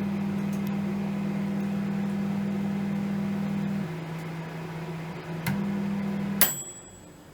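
Microwave oven running at 600 W with a steady hum, a click about five and a half seconds in, then a sharp high tone as the hum stops near the end, which fits the oven finishing its cycle.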